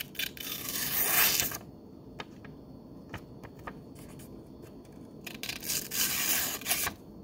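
S35VN steel edge of a Toor Merchant tanto folding knife slicing through a paper sticky note, as a sharpness test on the flat section of the tanto edge. There are two rasping passes of blade through paper, the first about a second and a half long and the second a few seconds later, with faint paper ticks between them.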